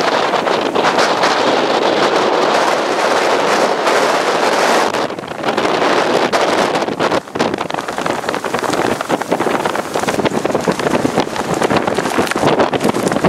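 Strong Hurricane Sandy storm wind buffeting the microphone: a loud, rough rush of noise in gusts, easing briefly about five seconds in.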